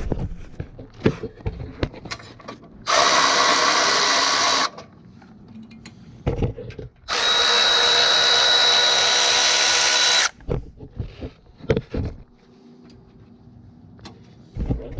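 Milwaukee M12 Fuel 3/8-inch brushless cordless ratchet running in two bursts, backing out bolts: a short run about three seconds in and a longer run of about three seconds in the middle. Short knocks and clicks come between the runs.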